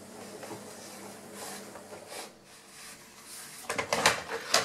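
Quiet handling noises, then several sharp clacks in the last second or so as ceramic floor tile pieces are set down and shifted into place.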